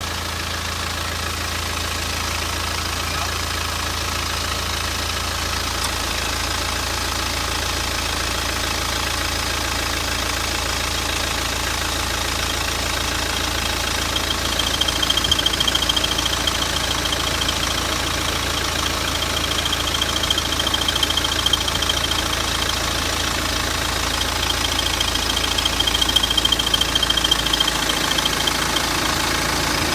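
BMW 318d (E90/E91) four-cylinder diesel engine idling steadily. About halfway through, a thin high-pitched squeal sets in and comes and goes; the owner hears this squeal from the engine when the air-conditioning compressor is switched on, cause unknown.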